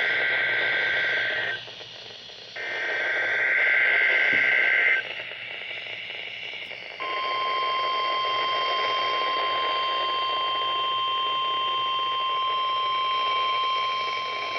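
NOAA Weather Radio test signal heard through a weather radio over reception static. First come two bursts of SAME digital header data, each a couple of seconds long. After a pause of about two seconds, the steady 1050 Hz warning alarm tone sounds unbroken from about seven seconds in.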